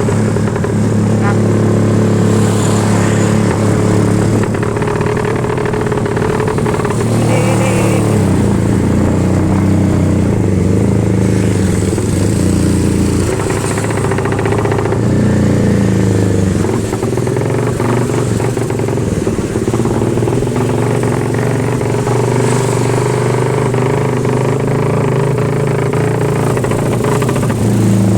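Suzuki Satria FU motorcycle's single-cylinder engine running with a helicopter-like exhaust sound, mostly at a steady speed with small shifts in pitch now and then.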